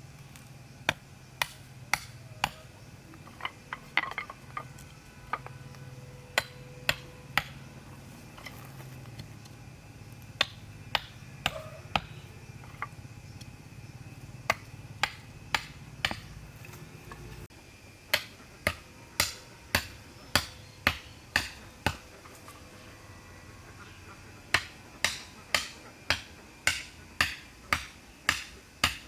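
Sharp knocks struck one after another in runs of several, about two a second, with short pauses between the runs. A low steady hum runs underneath until about two-thirds of the way through, then stops.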